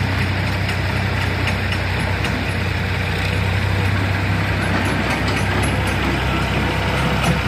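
Farm tractor's diesel engine running steadily as it pulls a tipping trailer that has just been emptied.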